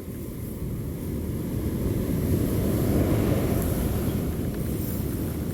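Wind buffeting the microphone over the wash of surf: a steady low rumbling noise that swells a little around the middle.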